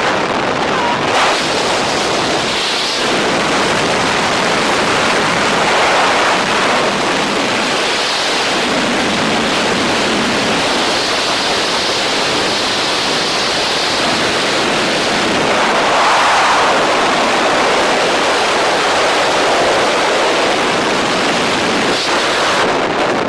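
Loud, steady rush of wind buffeting the camera microphone during a tandem skydive freefall.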